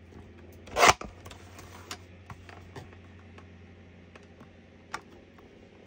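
Light clicks and taps of card and craft pieces being handled on a tabletop, with one louder, brief noise about a second in. A faint low hum runs underneath.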